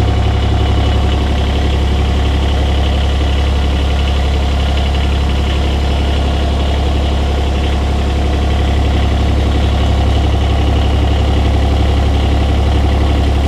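Kubota U17-3 mini excavator's three-cylinder diesel engine idling steadily. It is driving the hydraulic pump as the pump draws freshly added oil from the tank into the system after a hydraulic oil change.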